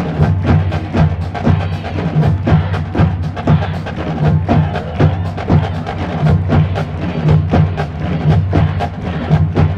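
Marching band music driven by percussion: rapid, evenly spaced drum and stick strikes over steady low notes.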